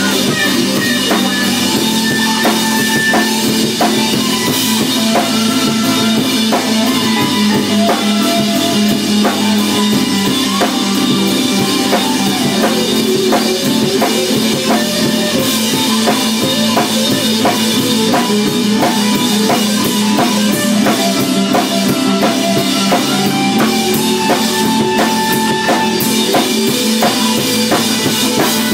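Instrumental band jam: a drum kit keeps a steady beat under held organ chords and a melody line.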